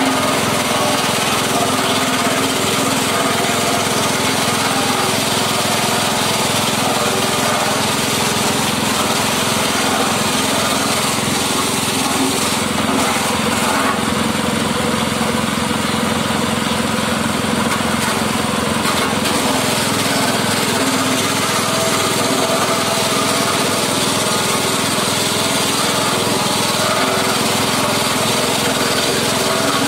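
Engine-driven forage chopper running steadily at full speed, its small engine and spinning blades chopping plant stalks as they are fed into the hopper.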